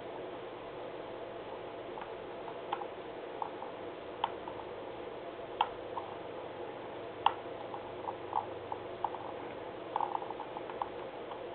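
Computer mouse scroll wheel clicking in short runs of notches, with a few sharper single clicks, over a steady hum.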